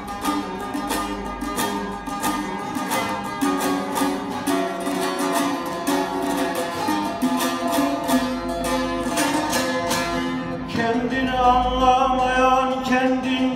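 Bağlama (long-necked Turkish saz) played with a plectrum in quick, rhythmic strokes. About three-quarters of the way through, a man starts singing a Turkish folk song over it.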